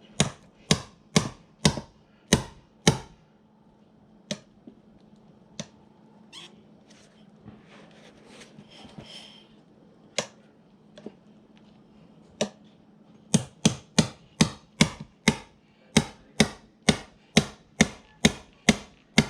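Repeated hammer blows while working on a moped: a quick run of five strikes, a few scattered single hits, then a steady run of strikes about two a second near the end.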